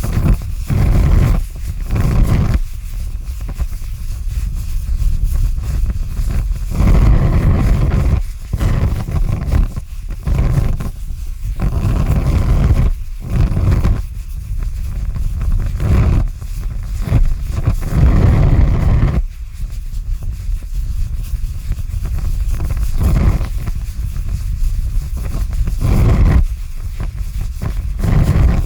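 Large fire burning, a deep low rumble with irregular surging whooshes every second or two.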